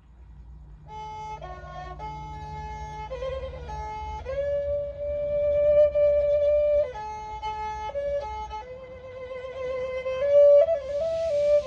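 Thai two-string bowed fiddle (so) playing a slow melody: a single line of long held notes with slides between them, starting about a second in.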